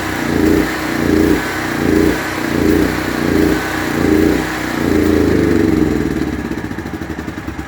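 Generac portable generator engine running with an uneven surge about every 0.7 seconds, then fading and slowing into a sputter near the end as it dies: starved of fuel with the gas valve shut.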